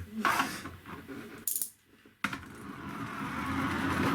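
Plastic gear train of a 3D-printed wind-up car: a few sharp clacks, a short gap about two seconds in, then the spring-driven gears start whirring suddenly and keep running.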